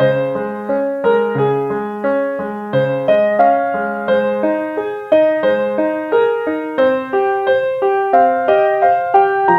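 Background piano music: a gentle melody of evenly paced notes, about three a second, each fading after it is struck.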